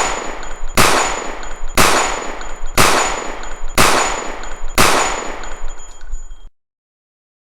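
Six loud gunshot-like bangs, about one a second, each ringing out for most of a second, with a thin steady high tone behind them. It cuts off suddenly about six and a half seconds in.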